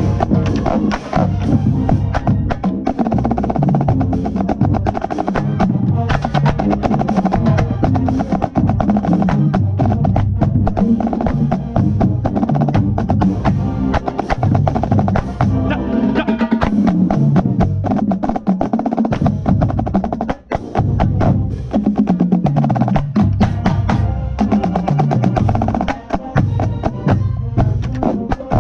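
Marching band playing a funk arrangement, with a marching snare drum close to the microphone playing rapid, crisp strokes and rolls over the brass and bass drums.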